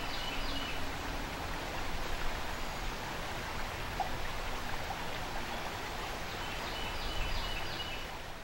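A shallow creek running over a riffle: a steady rush of moving water. A bird sings a short phrase of high repeated notes right at the start and again near the end.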